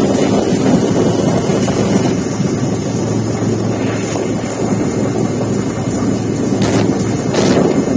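Loud, steady aircraft cabin noise: engine drone and rushing air, with a low hum underneath.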